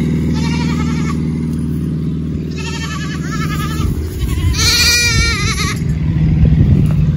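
Goats bleating three times, each call wavering, the last and loudest about five seconds in, over a steady low engine drone that gives way to rougher low rumbling about four seconds in.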